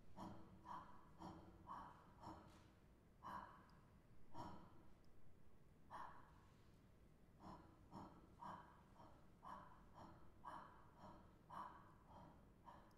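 Faint, short breathy puffs of air, about fifteen at uneven gaps of roughly half a second to a second and a half, in a near-silent hall.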